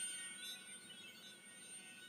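Nokia N96 ringtone ending, its electronic chime-like tones held and dying away.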